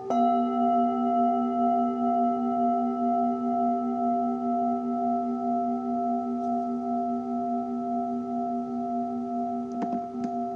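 A singing bowl struck once at the start, its tones ringing on with a slow, even pulsing, layered over another bowl's tone still sounding from before. A few light taps or clicks near the end.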